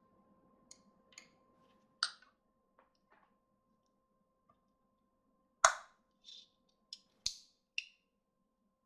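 Scattered short clicks and taps of small hard objects, about ten in all at irregular spacing, the loudest about two seconds and five and a half seconds in, over a faint steady hum.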